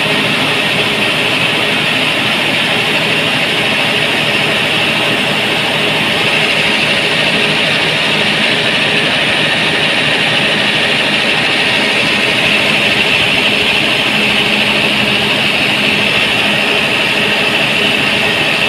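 Cummins 6BT inline-six diesel running steadily at a constant speed, heard close up at its alternator and belt drive. The engine is running on a newly fitted belt, with the automatic belt tensioner removed and replaced by a fixed bracket.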